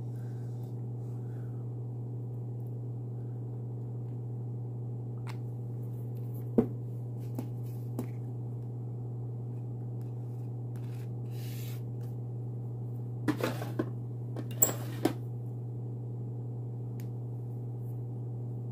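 A steady low hum, with one sharp click about a third of the way in and a few more light clicks and taps about two-thirds through, from nail polish and stamping tools handled on a metal stamping plate.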